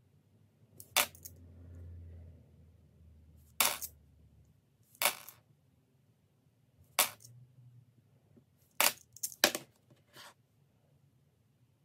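Australian $1 coins being handled and set down, giving sharp single clinks every second or two, with a quick run of several clinks shortly before the end. A low rumble sounds between the first few clinks.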